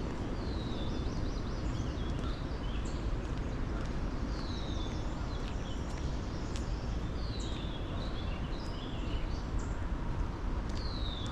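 Outdoor ambience: birds calling over a steady low rumble. One bird gives a short, high call that slides downward, four times, about every three seconds, with other chirps scattered around it.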